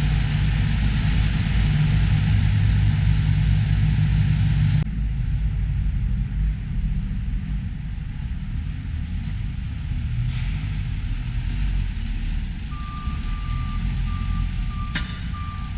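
Engines of heavy equipment working the tractor-pull dirt track run with a steady low rumble. In the last few seconds a reversing beeper sounds a steady high tone.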